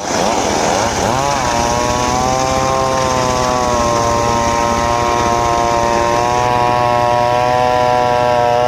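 Homemade circular saw rig running with a steady, high whine; its pitch wavers for the first second or so, then holds steady.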